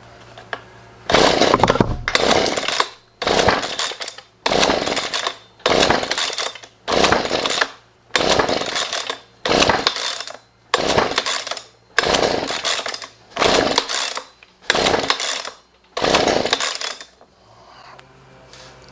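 Husqvarna 125B two-stroke leaf blower being pull-started on half choke: about a dozen quick recoil-starter pulls, one every second and a quarter or so, with the engine turning over and sputtering but not catching. It is flooded.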